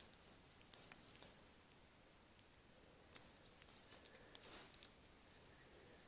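Faint, scattered clicks and light rattles of fishing tackle being handled, with a short cluster of them about four and a half seconds in.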